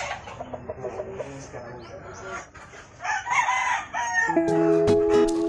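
A gamecock crows once about three seconds in, over faint clucking. Background music with steady held notes starts near the end.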